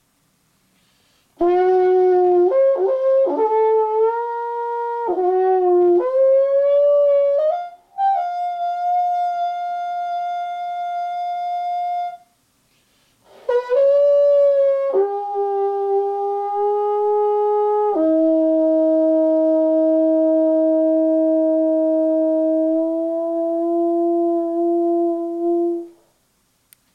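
Soprano trombone played solo in an improvised line. It moves through short notes joined by slides and leaps, then holds a long note. After a brief pause it goes on with two long sustained notes and breaks off near the end.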